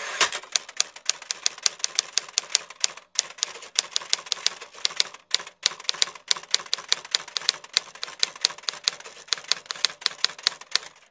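Typewriter keystroke sound effect: a rapid run of sharp clacks, about four or five a second, with two short pauses about three and five and a half seconds in.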